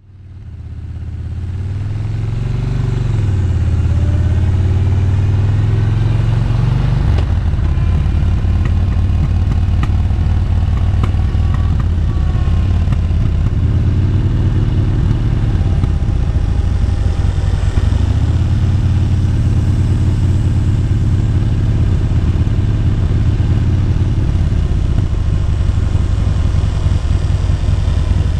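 Yamaha Bolt's air-cooled V-twin engine running as the motorcycle is ridden, fading in over the first few seconds. The engine note rises and falls a few times with the throttle.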